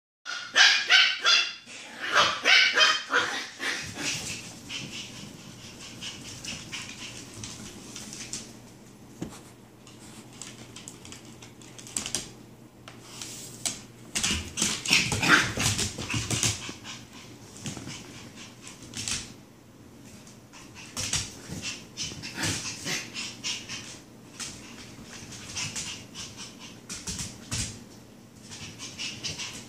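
Dogs at rough play: a terrier puppy's high-pitched yips and barks, quick runs of them in the first few seconds and again around the middle, with scattered shorter yelps and clicking scuffles on a hardwood floor in between.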